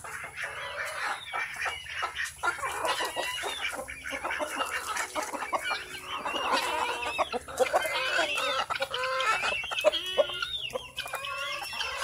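Several chickens clucking continuously, many short calls overlapping.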